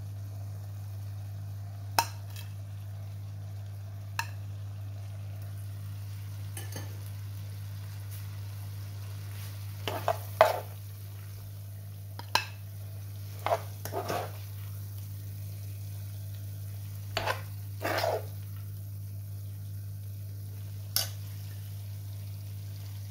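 Metal spoon and knife knocking and scraping against a ceramic plate and a cooking pan, about ten scattered clinks with a few longer scrapes, the loudest about ten seconds in, over a steady low hum.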